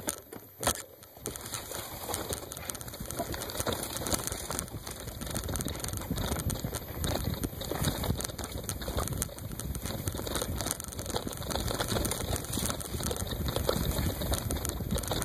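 Bicycle ridden over a rough off-road trail through dry grass: a dense, steady crackle and rattle of tyres and bike over the ground, starting about a second in.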